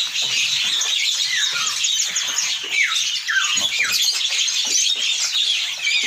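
Many small caged songbirds chirping and calling at once: a dense, continuous chatter with short falling whistles heard every second or so.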